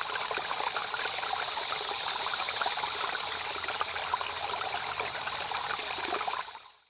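Flowing river water: a steady rushing hiss full of fine splashing, which fades out near the end.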